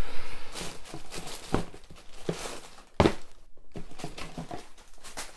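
Tissue paper rustling and crinkling while shoes are handled in a cardboard shoebox, with a few soft knocks.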